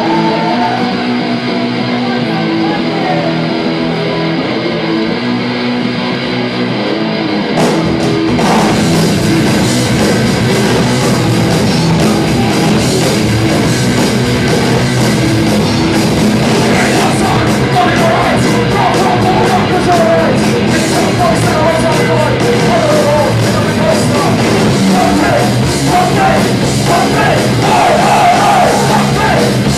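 Punk band playing live, the song opening without drums; the drums and full band crash in about seven seconds in, and shouted vocals join later.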